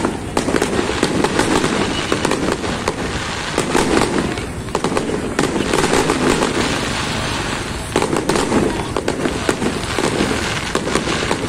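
Fireworks display: aerial shells bursting one after another, a dense, irregular run of bangs and crackling.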